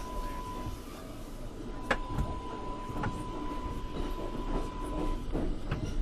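R142A subway train standing at an underground station platform, its air-conditioning off: a steady low rumble with a few sharp metallic clanks, the strongest about two seconds in, and a steady high electrical tone that stops about five seconds in.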